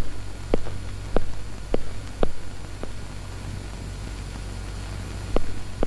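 Shoe footsteps on a hard floor, about two steps a second, stopping after about three seconds, then one more step near the end, over a steady low hum.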